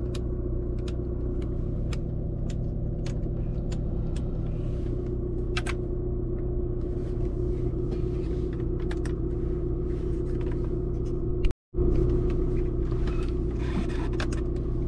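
Audi A6's 2.0 TDI four-cylinder diesel engine idling steadily, with faint ticks over a low, even hum. The sound cuts out for a split second about two-thirds of the way through.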